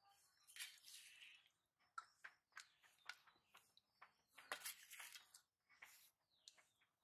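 Faint, scattered clicks and soft scrapes of a steel spoon against stainless steel plates as okra curry is ladled onto rice.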